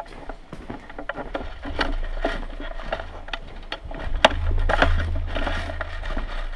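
Footsteps on a concrete floor and the clatter of a player's gear and airsoft rifle as he moves, with irregular knocks and clicks and one sharp knock about four seconds in. Low rumble from handling of the rifle-mounted camera swells in the second half.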